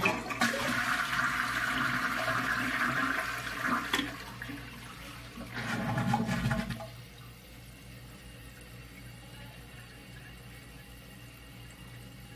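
2001 Eljer Savoy toilet flushing: rushing water for about four seconds, a second shorter surge around six seconds in, then a quieter steady hiss as the tank refills.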